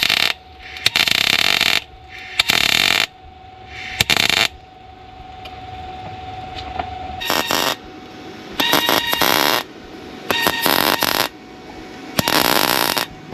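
MIG welder laying a series of short tack welds: about eight crackling bursts, each lasting a second or less, with brief pauses between.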